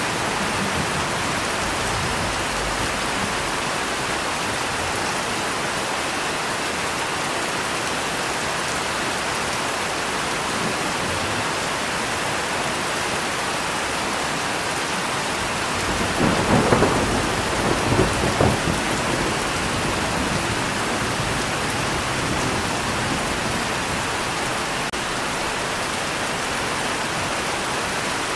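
Steady heavy rain, with a roll of thunder rumbling for a few seconds in the middle.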